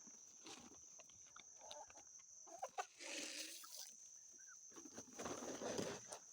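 Chickens clucking softly in short, scattered calls while pecking at feed, with a brief rising squawk and two bursts of rustling scuffle. A thin, steady high-pitched whine sits underneath.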